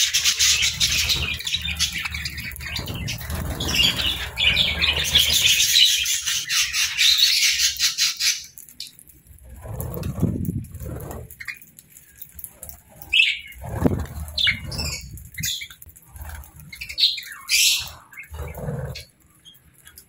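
A flock of budgerigars chattering in a dense, warbling chorus that cuts off suddenly about eight seconds in. After that there are only scattered short chirps, and several low whooshes that fit wings flapping.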